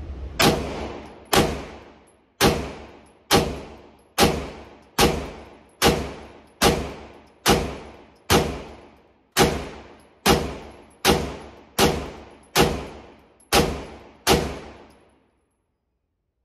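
Beretta M9A4 9mm pistol firing seventeen shots in slow, steady aimed fire, about one shot a second, each shot followed by a fading echo off the walls of the indoor range.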